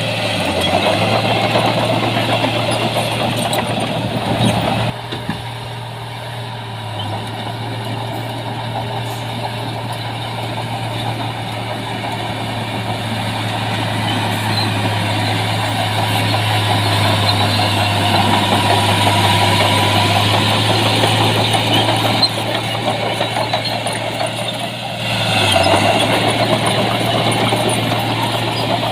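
Heavy diesel earthmoving machinery running with a steady low engine drone. It drops in level about five seconds in and rises again near the end.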